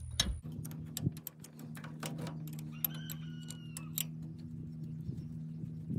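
Irregular metallic clicks and clinks of a wrench working the bolts of a tractor's starter motor, over a steady low hum. A short squeaky chirp sounds about three seconds in.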